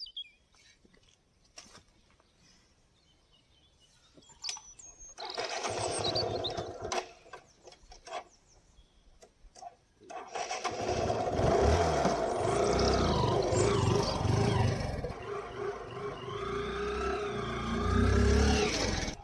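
A motorcycle engine running as the bike rides up, coming in about five seconds in and louder and steady from about halfway.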